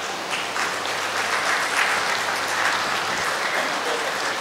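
Audience applauding, a steady clapping of many hands.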